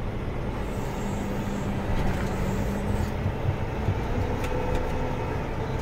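John Deere 9620R tractor's diesel engine running steadily under way, heard from inside the cab, with a low hum that drops away about three seconds in.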